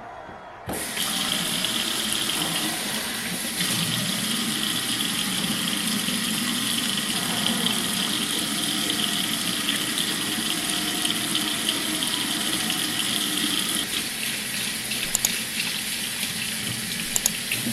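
Water running from a tap in a steady stream, starting about a second in, with a few sharp clicks near the end.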